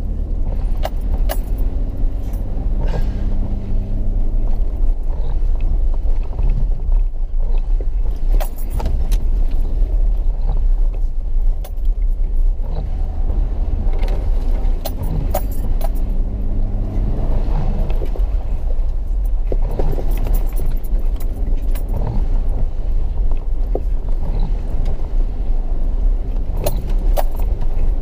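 Four-wheel-drive vehicle's engine running at low speed over a rough, wet dirt track, its note rising and falling, with frequent rattles and knocks from the body and suspension over the bumps.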